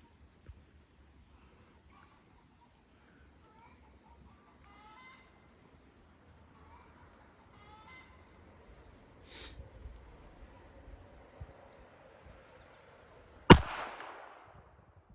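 A single shot from a Kimber Micro 9 pistol, 9mm, near the end, with a short echo trailing off. Before it, insects keep up a steady high buzz and a regular chirping about twice a second.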